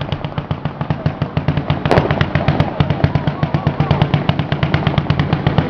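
A long string of firecrackers going off in a rapid, even crackle of about ten bangs a second, with one louder bang about two seconds in.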